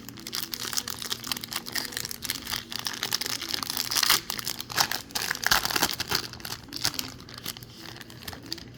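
Plastic foil wrapper of a 2020 Bowman baseball card hobby pack crinkling as it is torn open and handled, a dense run of crackles that is loudest around the middle.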